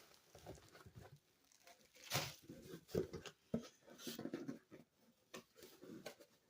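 Quiet handling noises while opening a parcel: scattered rustling and scraping with a few light knocks, the sharpest about two, three and five and a half seconds in.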